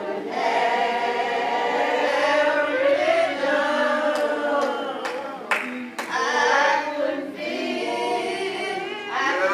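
Church congregation singing a slow a cappella hymn, the voices drawing out long, sliding notes without accompaniment. A few sharp taps sound near the middle.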